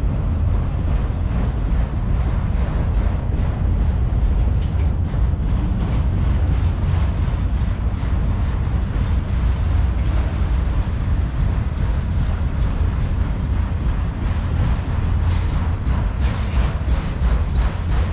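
Freight train of autorack cars rolling past close by: a steady, loud, deep rumble of steel wheels on rail that keeps on without a break.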